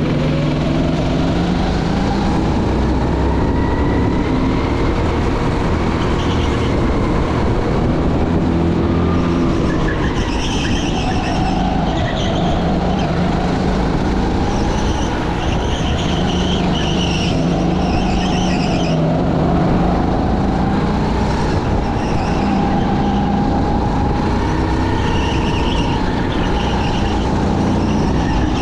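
Racing go-kart engines running on a track, the engine pitch wavering up and down as they accelerate and lift through the corners.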